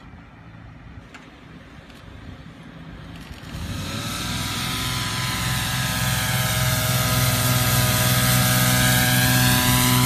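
Truck-mounted mosquito fogger running as its pickup passes: a loud, steady machine hum with a clear pitch and a hiss of spray, growing louder from about three and a half seconds in as the truck comes close.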